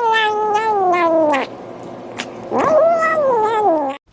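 A cat yowling: two long, drawn-out calls, the first sliding slowly down in pitch, the second rising and then falling, cut off suddenly near the end.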